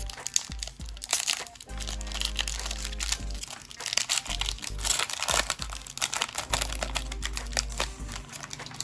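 Trading card pack wrapper crinkling and tearing as the pack is opened, a dense run of irregular crackles, over background music.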